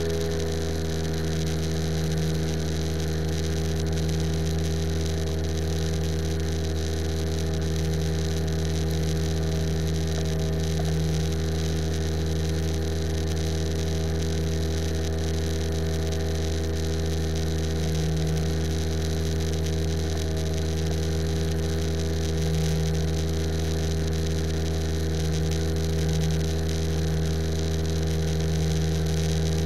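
Small plane's piston engine and propeller running steadily in flight, a low even drone with a hiss of rushing air over it.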